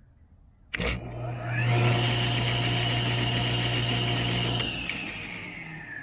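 Vintage Craftsman table saw switched on with a click of its new paddle switch about a second in: the motor hums and the blade spins up to a steady whine. Past the middle the hum cuts out and the whine slowly falls as the blade coasts down.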